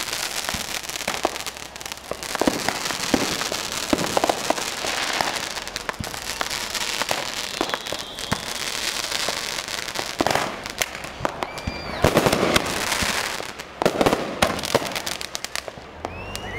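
Consumer fireworks going off: a dense, continuous string of sharp pops and crackles, with a few short whistles in between.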